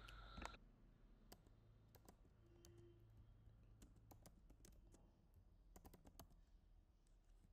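Faint typing on a computer keyboard: scattered single keystrokes and short runs of keys.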